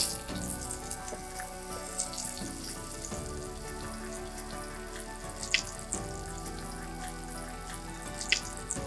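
Seaweed-wrapped red snapper roll frying in oil in a miniature wok: a steady sizzle with a few sharp pops spread through it. A sharp click at the very start, over background music.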